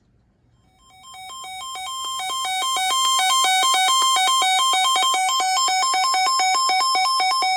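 Electronic two-tone alert signal, a warble that switches rapidly back and forth between two pitches. It swells in over the first few seconds, holds steady, then cuts off abruptly, just before a new tornado warning is broadcast.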